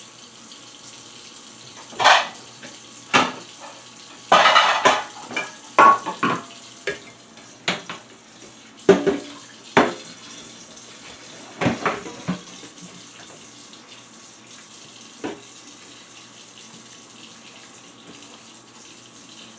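Kitchen tap running into a stainless steel sink while dishes are washed, with repeated clatters and knocks of dishware and a pan against the sink. The knocks come thick for the first half and thin out, leaving mostly the running water.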